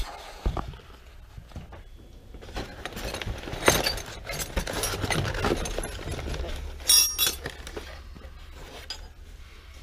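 Rummaging under a table: sheets of paper and cardboard rustling and sliding, with a few sharp clinks of small hard objects. The loudest is a clink in the middle, then a short cluster of clinks near the end.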